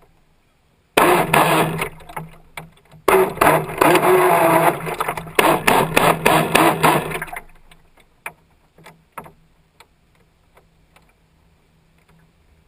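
Radio-controlled speedboat recorded from a camera on its deck, running fast with its hull slapping the water and water rushing past. The run starts about a second in, dips briefly near three seconds, then eases off around seven seconds. After that only a faint steady hum and a few small splashes against the hull remain.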